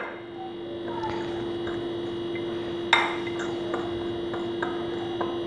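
A metal spoon stirring flour and spice on a ceramic plate, clinking against the plate at the start and again about three seconds in, with a few light ticks. A steady electrical hum runs underneath.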